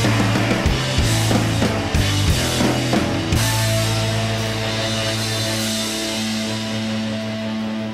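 Rock music with guitar and drums; the drum hits stop about three seconds in, leaving a held chord.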